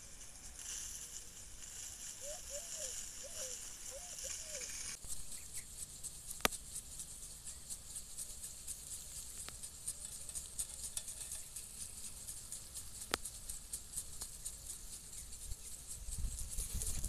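Field irrigation sprinklers spraying water: a faint, steady patter of droplets with rapid fine ticking, and two sharper clicks. In the first few seconds there is only a soft hiss with a few short chirps.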